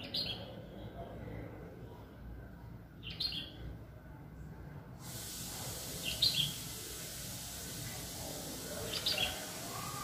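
Red-whiskered bulbul calling: four short, bright chirping phrases spaced about three seconds apart. A steady hiss comes in about halfway through.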